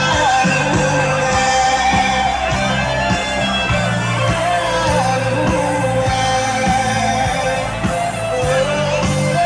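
Live band music with a singer holding long, wavering notes over a steady drum beat, bass and electric guitar.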